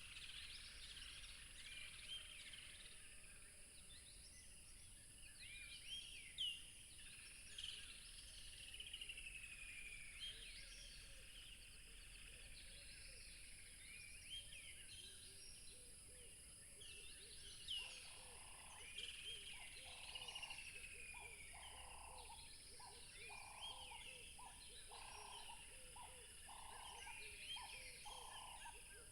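Faint chorus of many small birds chirping and singing, with short rising and falling notes overlapping throughout. Past the halfway point a lower, evenly repeated call from another bird joins in, about one or two notes a second.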